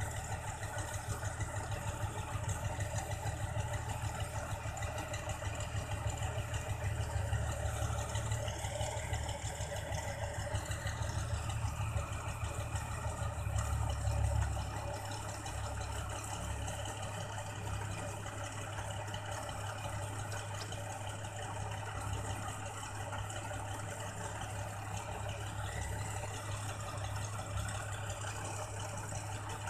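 New Holland combine harvester's engine running steadily with its unloading auger working as it empties rice grain into a lorry. About halfway through the low drone swells briefly, then settles a little lower.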